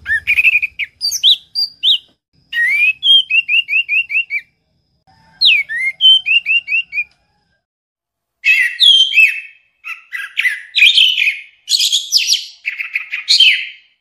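Orange-headed thrush (anis merah) singing: phrases of clear whistled notes, some in quick runs of repeated short notes, broken by short pauses. The song grows denser and more varied in the second half.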